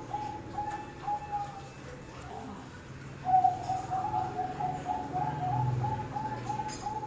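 Zebra dove (perkutut) cooing its song: rapid runs of short, evenly spaced notes, breaking off about two seconds in and starting again a second later.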